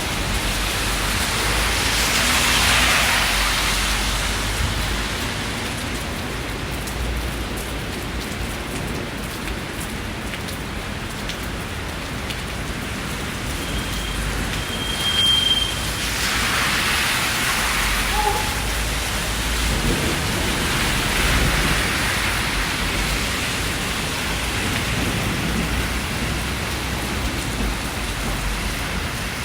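Steady rain falling, its hiss swelling and fading twice, with a short high beep about halfway through.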